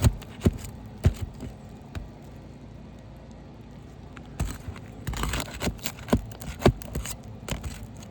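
Sharp knocks and scraping of a hand tool working under asphalt roof shingles to pry out roofing nails: three knocks in the first second, then a quick run of knocks and scrapes about four and a half seconds in.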